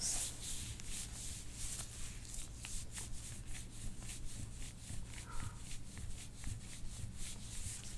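Hands rubbing over the body in soft-tissue massage, with quick repeated brushing strokes at about four or five a second.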